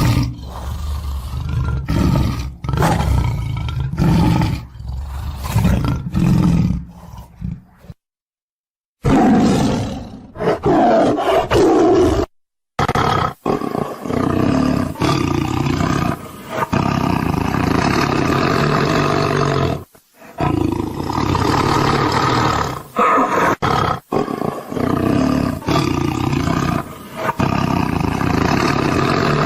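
Lions and tigers roaring again and again, a string of cut-together roaring clips with two short dead silences in the first half.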